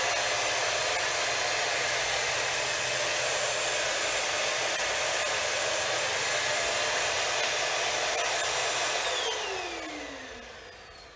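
Bissell Big Green Commercial Hercules Slim Vac stick vacuum running at maximum power with a steady high whine, its nozzle in bare-floor mode sucking up a spilled mix of flour, rice and salt. About nine seconds in it is switched off and the motor winds down, its whine falling in pitch.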